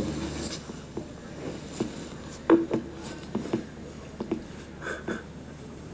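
A few soft taps and clicks over a low steady hum, clustered in the middle of the stretch.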